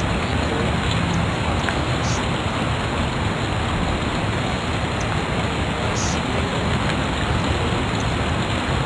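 Steady hiss of the recording's background noise, with a few faint short ticks above it.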